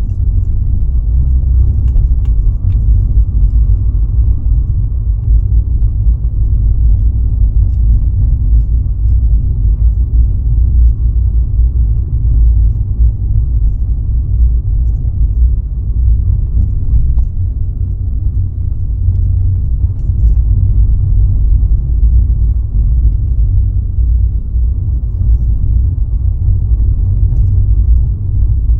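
A car driving along at a steady pace: a continuous low road and engine rumble with no clear change.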